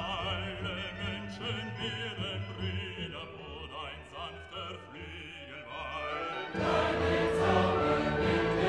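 Background music: classical-style singing with a wavering vibrato, which swells into a louder, fuller passage about six and a half seconds in.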